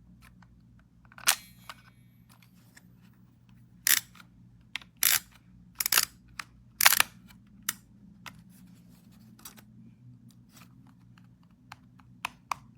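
Kodak Ektar H35 half-frame film camera being worked: a string of sharp mechanical clicks from its shutter and film-advance thumbwheel. The loudest come about a second in and again from about four to seven seconds in, with lighter ticks between them.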